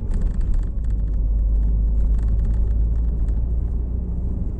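Fiat Palio rolling and braking, heard close to the right front wheel: a steady low rumble of tyres and suspension, with small, quiet ticks from the wheel area under braking. The ticking is a suspension fault, traced to a stripped subframe nut.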